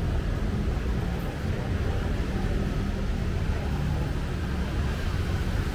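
Steady city-street ambience dominated by a low vehicle rumble, with no distinct events.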